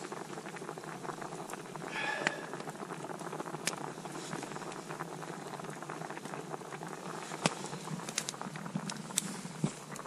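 Fish soup boiling hard in an open pan over a campfire: a steady bubbling hiss with scattered sharp pops and crackles.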